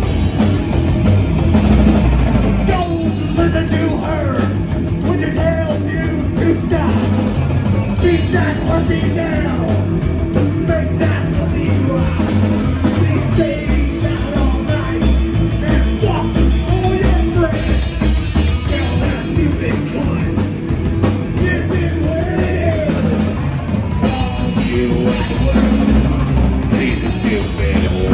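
Live psychobilly punk band playing a fast rock song: upright bass, drum kit and electric guitar, with a male singer's vocals over it from a few seconds in.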